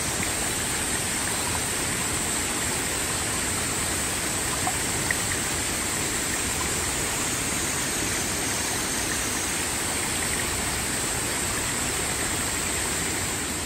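Mountain valley stream rushing steadily, a continuous even rush of water.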